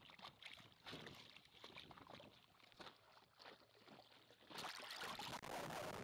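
Water sloshing and splashing, heard faintly through a camera being dipped in and out of the water, with scattered small knocks. About four and a half seconds in it turns into a louder, steady rushing noise.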